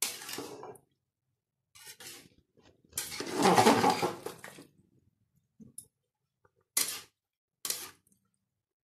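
A spoon stirring wet rice and vegetables in a metal pot, scraping and squelching in several short bursts, the longest and loudest about three seconds in, with brief knocks near the end.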